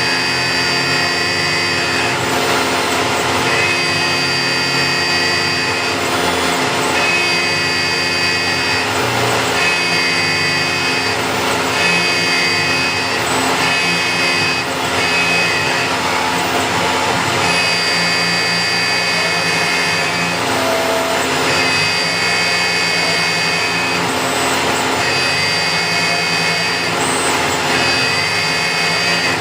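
A CNC machine running steadily, with a high whine that rises and cuts off roughly every two seconds over a constant mechanical hum.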